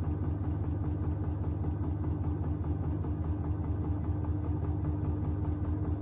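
Bauknecht WAP9988 front-loading washing machine with its drum turning fast: a steady low motor hum with a steady whine over it.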